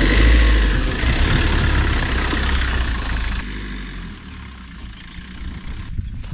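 Mahindra Scorpio SUV's diesel engine running close by, a low steady rumble; about three seconds in it cuts abruptly to a much quieter, more distant engine sound.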